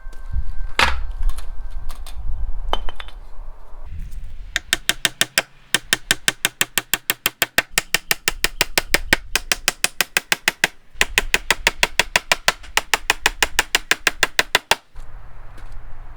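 Two sharp knocks, then long runs of rapid, evenly spaced clicks or taps, about five a second, with a short break partway through, over a low rumble.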